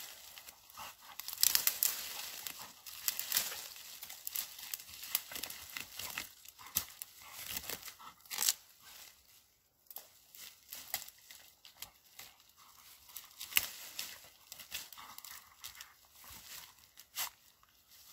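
A dog tearing and tugging at a fallen leafy branch: twigs crackle and snap, and dry leaves rustle under its feet, coming and going irregularly with sharp cracks.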